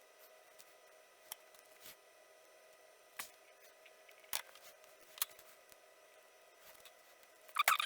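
A few scattered small snips and clicks from small electronic parts being worked on at the bench, with a quick run of louder clicks and scrapes near the end.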